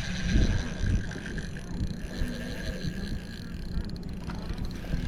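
Wind buffeting the microphone in uneven low rumbles, with a faint steady hum underneath.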